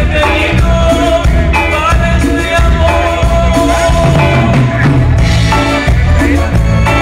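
Live band playing a song loud and continuously, with electric guitar, electric bass, drum kit and congas.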